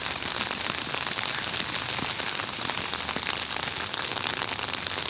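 Steady pouring rain, a dense patter of many separate drops with no break.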